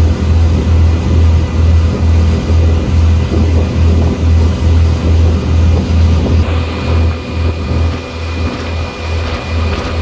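Motorboat under way: a loud, low engine drone that pulses about three times a second, over a steady hiss.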